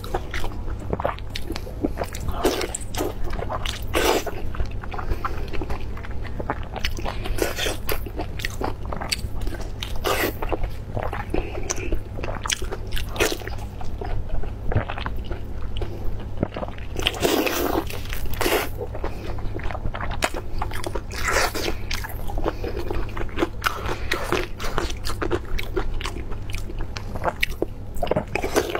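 Close-miked biting and wet chewing of chili-oil-soaked blood sausage: a dense, irregular run of mouth clicks and smacks.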